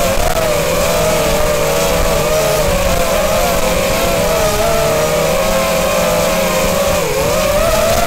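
Electric motors and propellers of a ducted FPV quadcopter whining in flight, heard from on board. Several close tones waver up and down together as the motors trim their speed, over a steady rushing noise.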